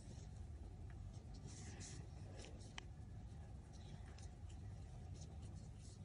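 Faint scratchy rustling of yarn being drawn through stitches with a metal crochet hook, in short irregular strokes over a steady low hum, with one small tick partway through.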